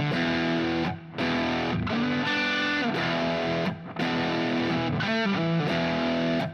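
Distorted electric guitar playing the chorus, mostly E power chords, each chord ringing out, with short breaks between chords about a second in and near four seconds.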